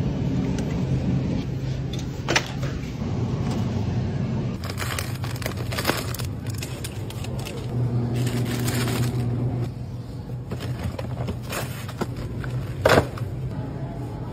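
Supermarket background noise: a steady low hum and rumble, with a few sharp knocks and rustles of packaged groceries being handled. The loudest knock comes near the end.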